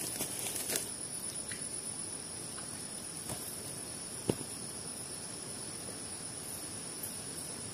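Steady high-pitched chorus of insects in the surrounding woods, two unbroken shrill tones. A few light handling clicks sound over it as a fish and bag are handled on the ground, the sharpest about four seconds in.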